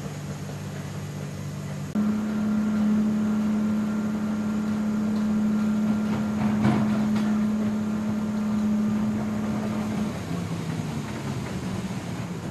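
Steady machinery hum in a C-17's cargo hold, with a low droning tone. About two seconds in it steps up slightly in pitch and gets louder, with a brief clatter of knocks in the middle, then drops back near the end as the pallet comes aboard.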